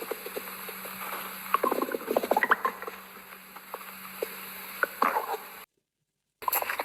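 Stomach gurgling after a meal, picked up close: a run of short squelches, squeaks and pops, irregular and uneven, over a faint steady hum. The sound cuts out completely for under a second near the end.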